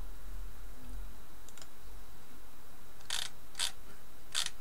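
Clicking of a computer's controls: two faint ticks about a second and a half in, then three sharp clicks near the end, the second about half a second after the first and the third nearly a second later.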